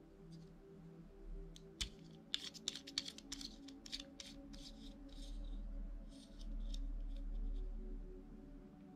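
Packaging being handled while a small camera accessory is unwrapped: a run of quiet crackles and clicks, thickest from about two to four and a half seconds in. Faint background music plays under it.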